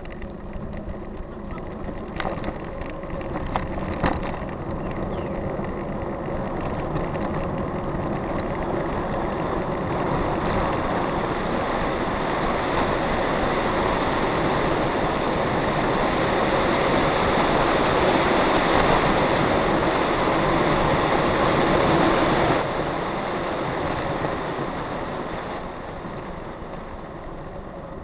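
Wind rushing over the microphone with tyre noise from a mountain bike rolling fast down a paved road. The rush builds steadily, drops off suddenly about two-thirds of the way through and then fades, with a couple of sharp knocks about two and four seconds in.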